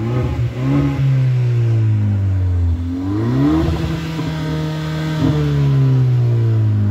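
Hyundai Elantra 1.6-litre turbocharged four-cylinder GDI engine being revved twice, heard at the exhaust. The revs rise in the first second, hold, and drop back; about three seconds in they climb quickly again, hold, and ease down. The engine is running through a Seafoam top-end cleaning, burning off intake-valve carbon.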